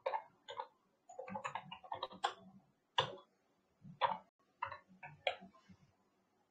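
Computer keyboard typing: a quick, uneven run of key clicks, then several single clicks spaced about half a second to a second apart.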